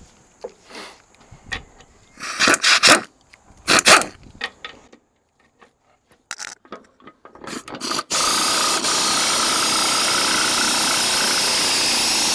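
Pneumatic air ratchet: a few short blips, then from about eight seconds in it runs steadily at full speed, fastening a suspension part on a heavy truck.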